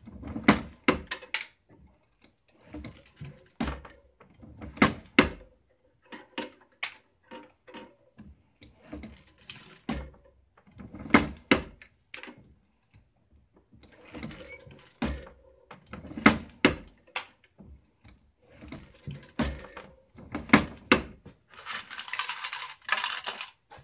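Bench press working a core-sizing swage die: repeated metallic clicks and knocks in short clusters every second or two as lead cores are fed in, squeezed to weight and ejected. Near the end comes a brief rustling, clattering burst.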